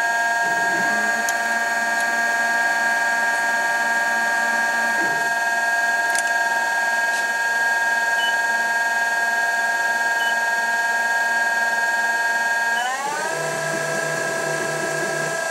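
Denford Orac CNC lathe running with its spindle turning: a steady machine whine of several tones, which glides up to a higher pitch about thirteen seconds in.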